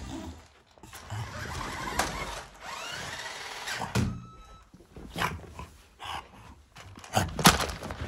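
Remote-control toy car's small electric motor whirring, its pitch rising and falling as it drives, with several sharp knocks and thuds; the loudest thud comes near the end.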